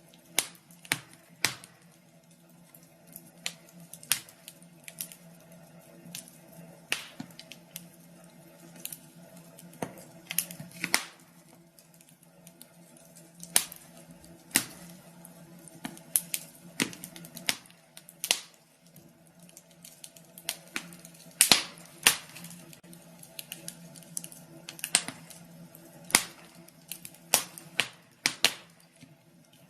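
Wood fire crackling in a fireplace: irregular sharp pops and snaps, a few louder ones past the middle, over a faint steady low hum.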